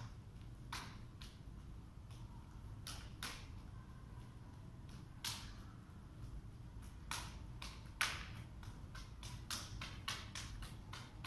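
Irregular sharp slaps and taps of hands and forearms meeting as two people trade parries in a knife-flow drill, coming quicker in the second half, over a low steady room hum.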